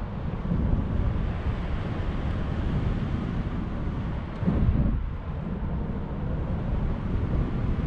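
Wind rushing over the camera microphone in paraglider flight, a steady low buffeting with a stronger gust about four and a half seconds in.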